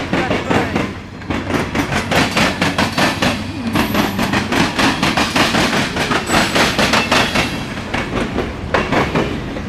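Norfolk Southern freight train cars rolling past, their wheels clicking steadily over the rail joints over a steady rumble.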